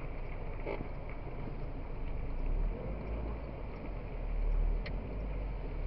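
Low rumble of vehicle and traffic noise picked up by a dashcam microphone, swelling briefly about four and a half seconds in, with a couple of faint clicks.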